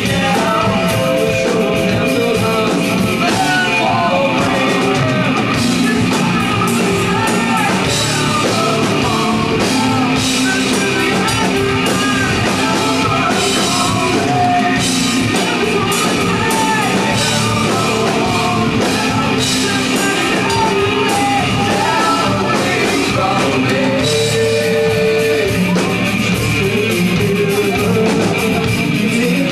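A rock band playing live and loud, with electric guitars and a singer.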